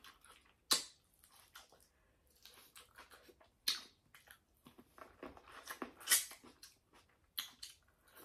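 Close-up eating sounds from a seafood boil: irregular wet chewing and smacking, with sharp clicks about a second in and near four seconds.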